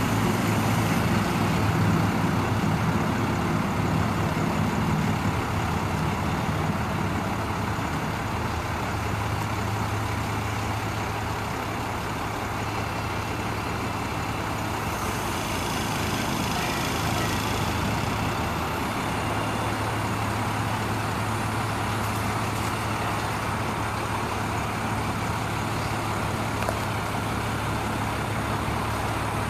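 Cummins 5.9-litre diesel engine of a Ford F800 truck running steadily while it drives the hydraulics of the aerial bucket boom. It is a little louder for the first few seconds, then settles into an even hum.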